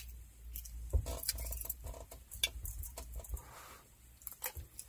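Faint, scattered clicks and scrapes of a metal spoon against a glass baking dish as a bite of food is scooped up and eaten.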